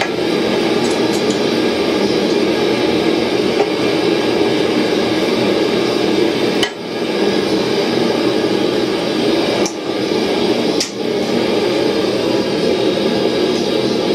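Tongs and a forged hardy swage knocking and clinking against a steel anvil, three sharp metal knocks between about halfway and two-thirds of the way through, over a steady, loud rushing noise.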